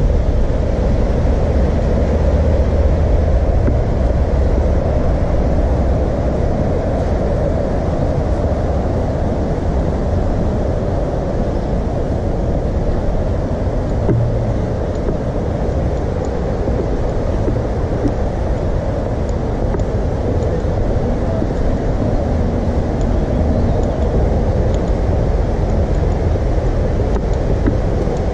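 Steady engine and road rumble heard from inside a moving bus.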